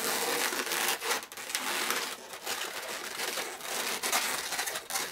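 Latex modelling balloons rubbing and crinkling against each other and against the hands as the balloon swan's wings are pulled back and squeezed into shape.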